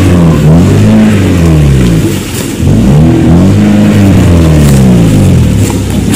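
UAZ's ZMZ-409 petrol engine revving up and down repeatedly under heavy load as the four-wheel-drive truck is driven hard through deep mud.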